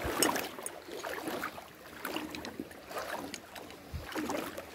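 Shallow creek water sloshing and splashing around a person's legs as they wade through it, with small irregular swishes and the knock of footsteps on the stony bed.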